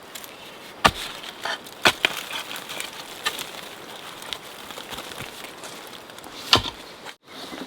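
Three sharp knocks, two about a second apart and a third several seconds later, with a few lighter clicks between, over a steady outdoor hiss.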